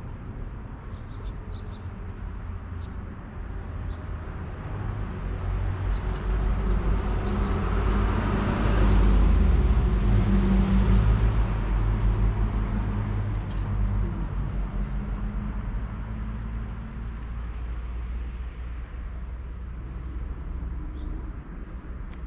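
A motor vehicle passing on a nearby road over a low engine hum, its tyre and engine noise swelling to a peak about halfway through and then fading away.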